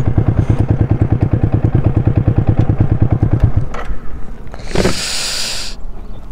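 Motorcycle engine idling with an even pulsing beat, then switched off about three and a half seconds in. A brief rush of noise follows near the end.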